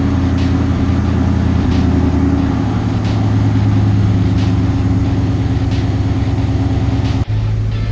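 Twin-turbocharged 5.0 Coyote V8 in a 2016 Ford F-150 idling steadily, its note shifting slightly a little under three seconds in.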